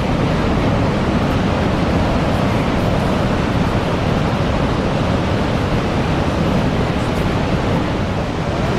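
Niagara's Horseshoe Falls rushing over the brink: a loud, steady roar of falling water.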